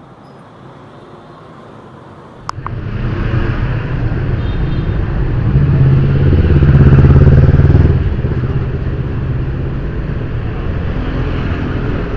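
A sharp click, then loud low-pitched street-traffic rumble with motorbike engines, swelling to its loudest about six seconds in and easing off after a couple of seconds.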